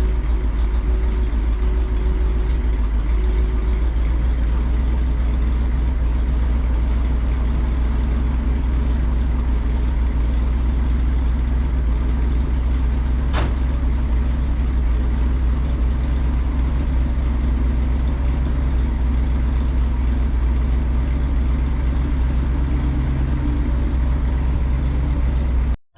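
An engine running steadily at idle, with a single sharp click about halfway through; it cuts off abruptly at the end.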